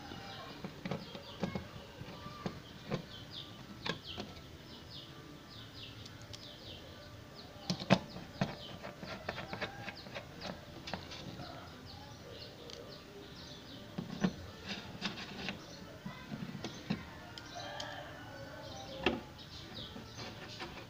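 Screwdriver working the screws of a TV power supply board into its metal chassis: scattered light clicks and ticks, with a sharper knock about eight seconds in and another near the end. Birds chirp in the background.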